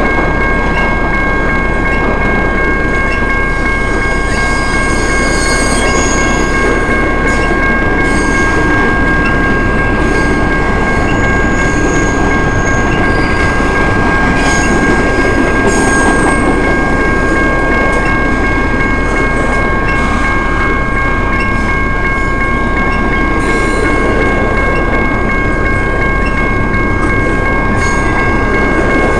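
Freight train of double-stack container well cars rolling past: a steady rumble and clatter of wheels on rail, with brief high wheel squeals now and then. A steady high ringing tone runs over it.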